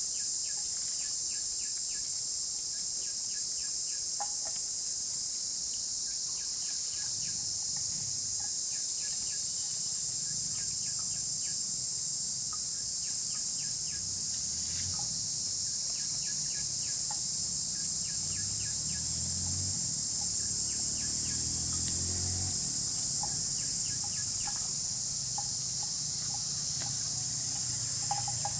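Steady high-pitched drone of an insect chorus, with scattered short bird chirps over it.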